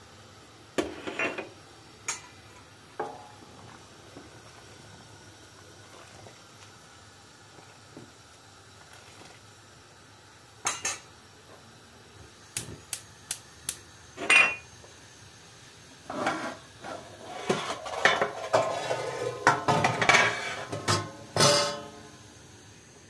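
Metal kitchenware clinking and clattering: a stainless steel pot and utensils knocked about on a gas stove's grate. Scattered single knocks and clinks at first, then a dense stretch of clatter in the last several seconds.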